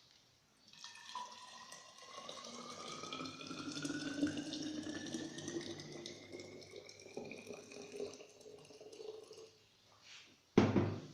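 Hot water pouring steadily into a vessel, its pitch rising slowly as the vessel fills, for about eight seconds. A sharp knock comes near the end.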